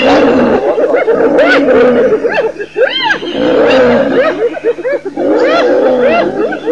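Spotted hyenas giggling, yelping and whooping in a loud, overlapping chorus of rising and falling cries, mixed with growling, as the clan confronts a lioness.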